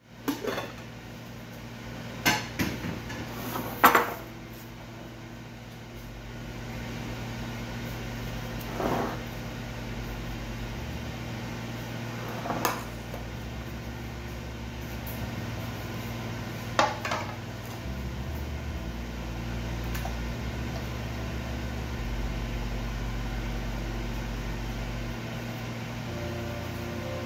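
White dishes knocking on a countertop as they are set down and shifted, several knocks in the first few seconds with the loudest about four seconds in, then a few scattered taps as gloved hands work in the bowl of breadcrumbs. A steady low hum runs underneath.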